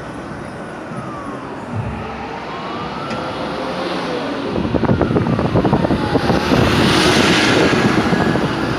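Ambulance siren wailing in slow rising and falling sweeps over road traffic, with a vehicle passing close and loud in the second half.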